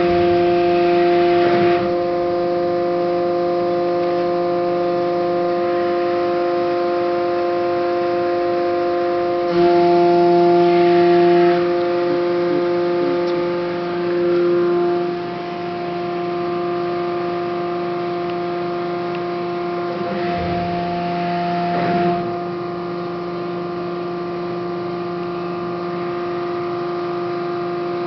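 Hydraulic system of a Haco 400-ton CNC press brake running with a steady whine of several stacked tones. The tone shifts a few times and grows louder for about two seconds around ten seconds in and again around twenty seconds in.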